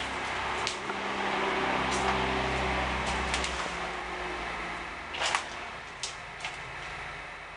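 A string of sharp clicks and knocks from objects being handled on a tabletop, the loudest about five seconds in, over a broad rushing noise with a low hum that swells over the first few seconds and then fades.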